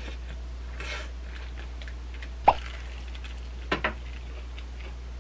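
Close-miked eating sounds: a brief crackle about a second in, a sharp click halfway through that is the loudest sound, and two quick clicks a little later, over a steady low hum.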